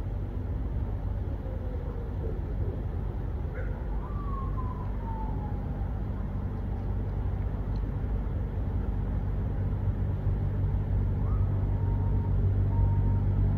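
MD 520N NOTAR police helicopter flying over: a steady low rotor and turbine drone that grows louder toward the end.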